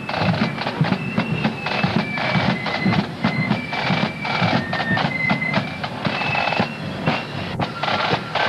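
Marching flute band playing a tune: a high flute melody over rapid side-drum rolls, with bass drum and cymbals.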